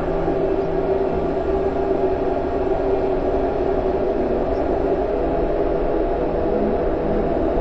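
Noise music: a dense, steady distorted drone, with several held tones stacked over a thick hiss and rumble and no change in loudness.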